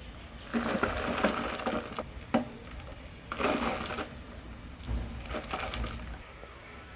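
Dry red dirt clay crumbling, in three bursts of gritty crunching and crackling with a sharp crack about two and a half seconds in.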